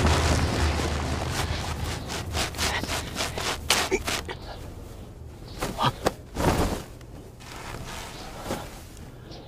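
A low boom dies away, then scattered soft thumps and swishes follow: footsteps in snow and the rustle of a monk's robe as he walks.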